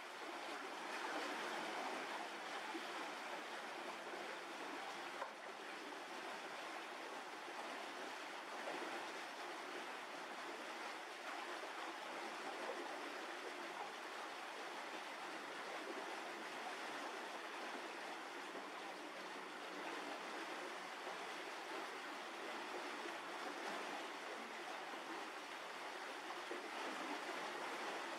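Steady rushing background noise with no pitch or rhythm, like wind or distant running water, with one brief click about five seconds in.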